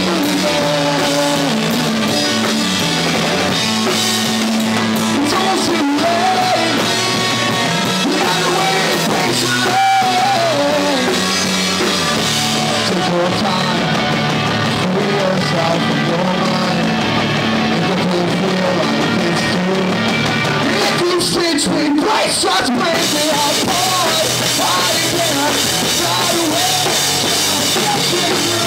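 Live rock band playing: drum kit and electric guitars, with a lead singer's vocals over them.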